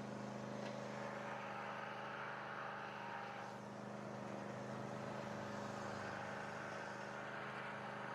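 Riding lawnmower engine running steadily while pulling a grader across the dirt.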